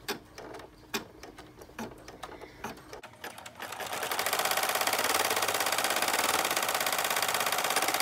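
Single-needle home embroidery machine stitching a placement outline through cork and tearaway stabilizer. A few light clicks come first; about three seconds in, a fast, even stitching rhythm starts and runs steadily, the footage sped up from real time.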